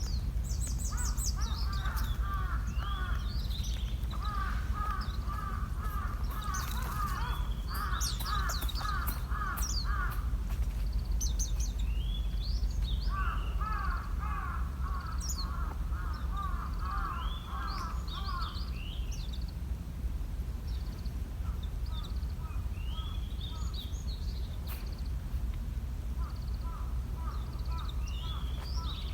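Birds calling outdoors: four runs of rapidly repeated short calls, each lasting several seconds, with scattered higher chirps from small birds in between. A steady low rumble runs underneath.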